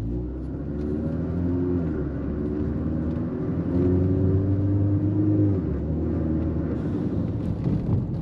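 Ford Fusion on a road test: engine and drivetrain running with steady road rumble. The engine pitch steps up and down a little, then eases off about five and a half seconds in.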